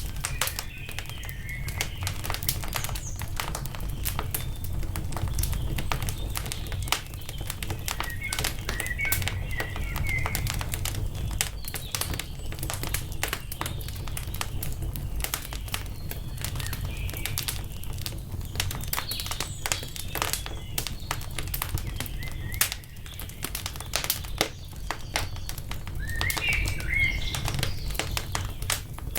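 Wood fire crackling and popping over a low steady rumble, with birds chirping in short phrases several times, clearest near the end.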